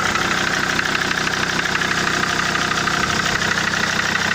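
SsangYong Rexton 2.7 five-cylinder diesel idling steadily with a rhythmic knock. The knock persists after the third injector was rebuilt and the second and fifth got new nozzles, so the owner holds that the injectors are not its cause.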